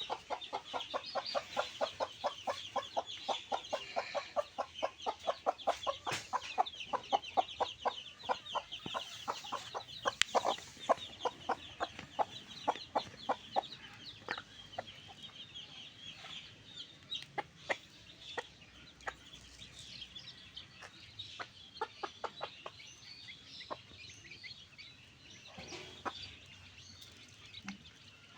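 Backyard chickens clucking, with a run of quick short calls about five a second that thins out about halfway through, over a constant high chirping.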